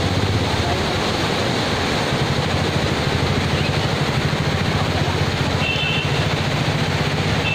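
Muddy river in full flood rushing over rapids: a loud, steady rush of churning water.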